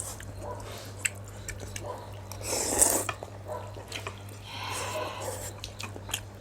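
Eating chicken noodle soup: two long slurps, about two and a half and five seconds in, between short clicks of utensils against the bowl.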